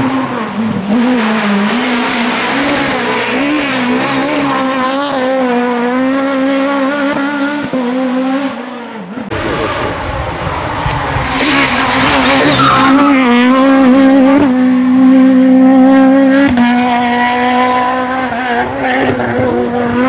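Peugeot 306 Maxi kit car's high-revving four-cylinder rally engine at full throttle, its pitch rising and dipping as the driver shifts and lifts through the bends. The sound cuts off abruptly about nine seconds in, then another pass of the same car follows.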